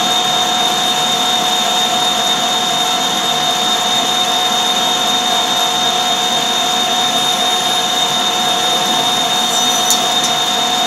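Metal-working engine lathe running with a large metal workpiece spinning in the chuck: a steady mechanical noise with a constant high whine.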